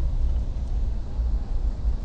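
Steady low rumble of a moving vehicle, heavy in the bass and wavering unevenly in level, with no distinct knocks or clicks.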